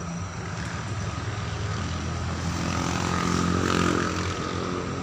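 Heavy diesel engine of a mobile crane working under load while it lowers a shipping container. It drones steadily, rises in revs and loudness to a peak a little under four seconds in, then eases back.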